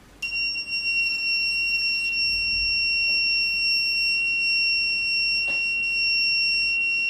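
Shortkiller phone-board short-circuit detection box's buzzer sounding one steady high-pitched tone while its output voltage is adjusted. A faint click comes about five and a half seconds in.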